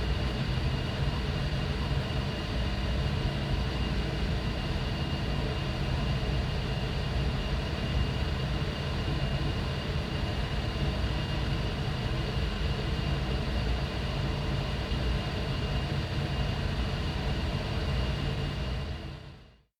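Air moving through a ventilation duct: a steady rumble with a thin, steady high whine on top. It fades out quickly at the very end.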